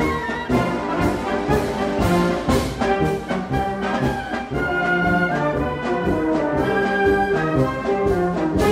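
Brass band playing a march, with trombones and trumpets over a steady beat about twice a second.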